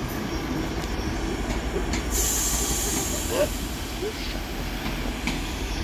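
Train moving through the station: a steady low rumble with a few faint wheel squeals, and a brief hiss starting about two seconds in.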